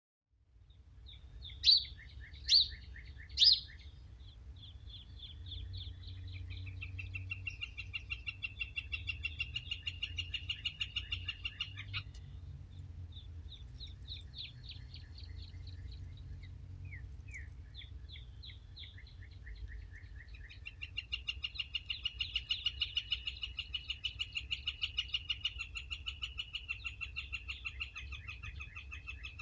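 Outdoor soundscape of several kinds of birds: three sharp chirps a couple of seconds in, then long, rapid trilled songs that stop about halfway and return near the end. Underneath runs a steady low hum from an outdoor air conditioner or similar machine, with wind.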